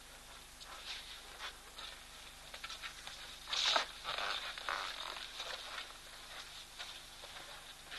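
Two African elephant bulls sparring, making a run of scrapes and crackles. The loudest, a raspy scrape about three and a half seconds in, comes as their tusks meet.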